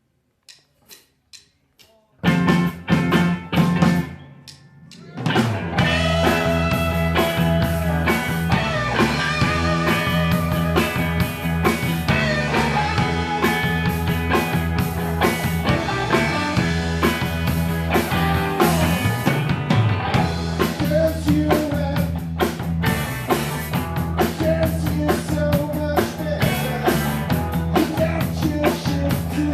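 Rock band playing live: four faint clicks count in, then the band comes in with loud hits about two seconds in, drops back briefly, and settles into a steady full-band groove with drums and guitar from about five seconds in.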